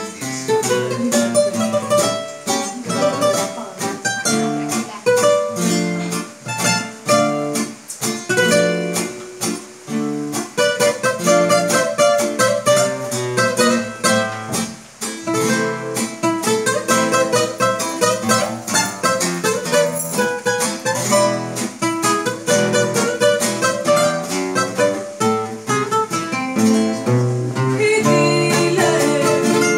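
Acoustic guitars playing an instrumental passage together, with quick plucked notes over chords.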